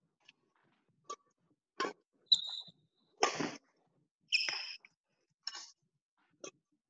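Badminton drill in a sports hall: sharp racket hits on the shuttlecock and squeaks of shoes on the court floor, about seven short separate sounds roughly a second apart with silence between them.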